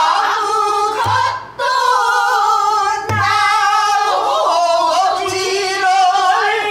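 A woman sings pansori in long, wavering held notes, accompanied by a buk barrel drum struck with a stick. Three deep drum beats fall about two seconds apart.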